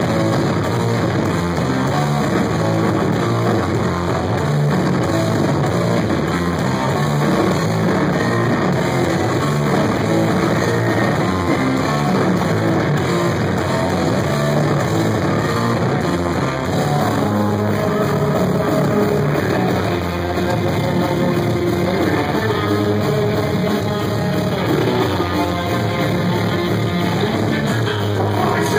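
Rock band playing live: electric guitar over drums, loud and continuous, with no singing.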